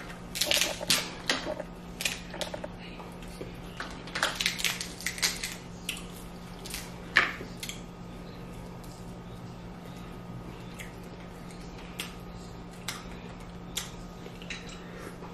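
Snow crab leg shells cracking and snapping as they are broken open by hand, in quick clusters of crunchy clicks, with one sharp crack about seven seconds in and then only occasional small clicks.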